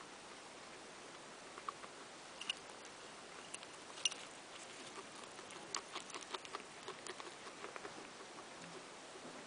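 Guinea pigs crunching a dry pellet-and-seed mix: faint, scattered crisp clicks of chewing, coming thicker and faster past the middle.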